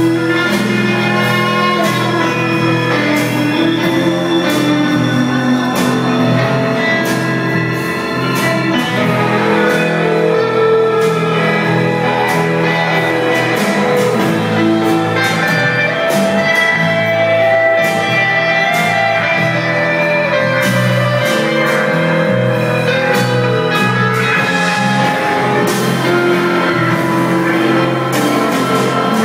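A band playing a song live on stage, with guitars prominent and drums keeping time, heard from the audience.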